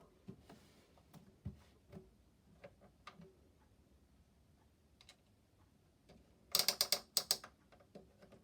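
Toy washing machine's plastic mechanism clicking: faint scattered clicks, then about eight loud ratchet-like clicks in two quick bursts near the end.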